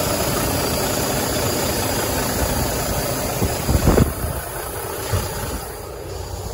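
Volvo semi truck's diesel engine idling, heard close up with the hood open. A few thumps come just past the middle, after which the engine sounds quieter.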